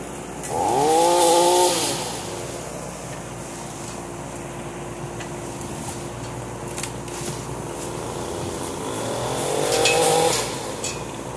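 Kubota K008 mini excavator's diesel engine running under hydraulic load. Its pitch climbs sharply about half a second in and holds for a second, settles to a steady lower run, then climbs again near the end. A few sharp snaps come near the end.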